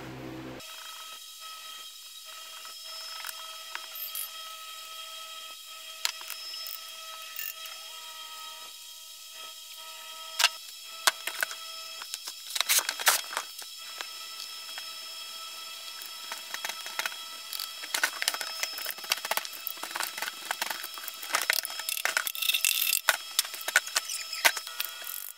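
Cast metal coins and clumps of moulding sand being knocked out of a wooden flask into a plastic tub: irregular clattering, knocking and scraping, picking up after a quiet start and busiest near the end. A steady high-pitched whine runs underneath.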